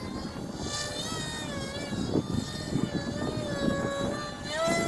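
Motor and pusher propeller of a foamboard RC jet whining overhead, the pitch wavering with throttle changes and rising sharply near the end. Wind buffets the microphone underneath.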